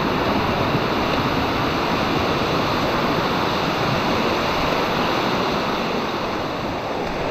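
Water of a rocky mountain stream rushing steadily over stones and small falls, an even, unbroken rush.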